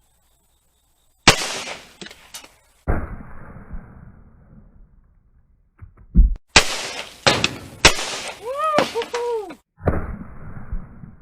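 Gunshots in edited clips: one sharp report about a second in, then a quick string of shots around the middle, with a short rising-and-falling pitched sound after them.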